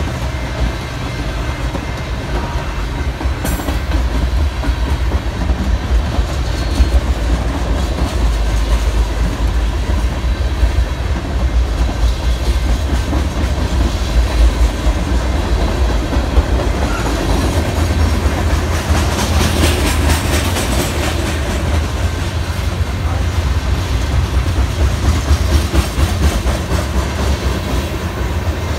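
Freight cars rolling past close by: a steady heavy rumble with the clickety-clack of wheels over the rail joints, rising briefly with extra higher-pitched rail noise about two-thirds of the way through.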